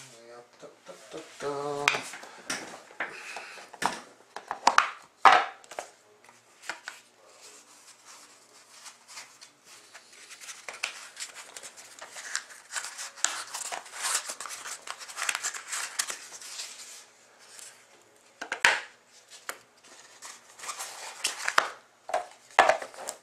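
Hands opening a stiff cardboard trading-card box: the lid and inner tray are worked loose and lifted out, and the cardboard is set down on a glass-topped table. There are repeated sharp clicks and knocks between stretches of rustling.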